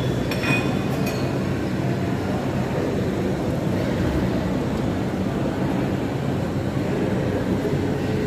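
Steady low rumble of background noise with a faint hum, and a short clink about half a second in.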